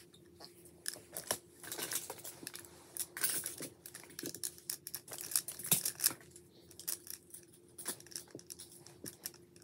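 Plastic magnetic building tiles clicking and clattering as they are handled, sorted from a pile and snapped together, in irregular sharp clicks.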